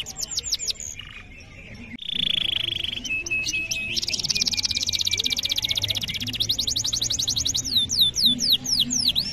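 Male domestic canary in full song: fast rolling trills of high downward-sweeping notes, a brief lull about a second in, then a buzzy roll and a long rapid trill from about four seconds in that slows into separate falling whistles near the end.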